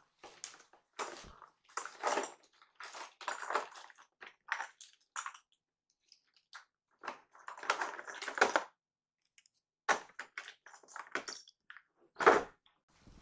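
Irregular bursts of rustling and crinkling, like bedding or packaging being handled, with a louder sharp bump about twelve seconds in.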